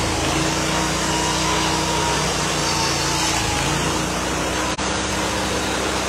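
Wood-Mizer band sawmill running, its engine and drive making a steady, unbroken machine noise.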